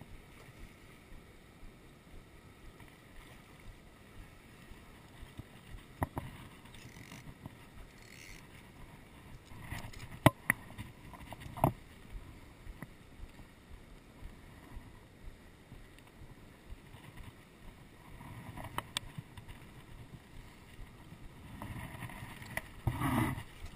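Faint outdoor background broken by handling noise close to a chest-worn camera: a few sharp clicks about six, ten and twelve seconds in, and a longer rustle near the end.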